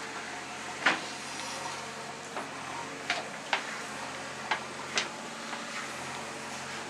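JCB 3DX backhoe loader's diesel engine running steadily, with five sharp knocks, the loudest about a second in and four more between three and five seconds in.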